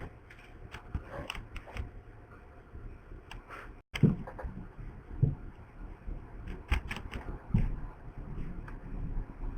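Scattered light clicks and taps of hands and small tools working on a laptop's case and parts, with a brief drop to silence about four seconds in.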